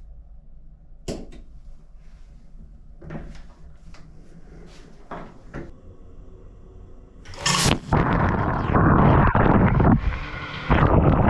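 A few faint clicks, then about seven seconds in a shower head is turned on and sprays water with a loud, steady hiss that dips briefly near the end.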